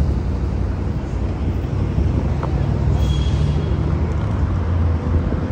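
City street traffic, a steady low rumble of passing cars, mixed with wind buffeting the microphone while moving along the road.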